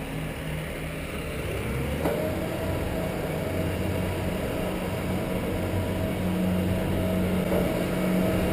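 Big truck engine running steadily with a low hum, slowly getting louder.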